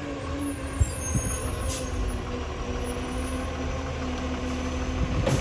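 Diesel engine of an Iveco side-loading garbage truck running low and steady as the truck creeps forward. There is a single knock about a second in and a brief hiss near the end.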